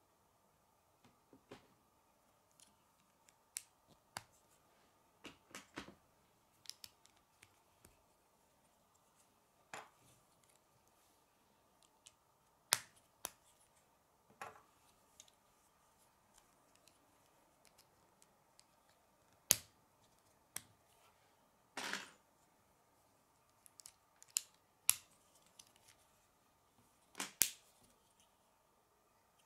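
K'nex plastic rods and connectors snapping and clicking together as they are assembled: sharp, irregular clicks every second or so, a few louder than the rest, with one longer scraping click. A faint steady high hum lies underneath.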